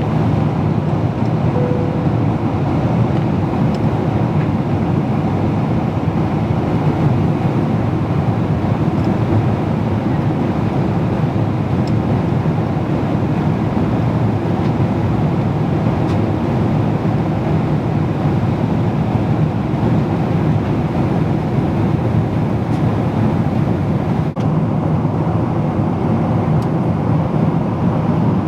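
Steady, loud rumble of a jet airliner heard inside the passenger cabin: engine and airflow noise with no clear rise or fall in pitch. A short, faint tone sounds about two seconds in.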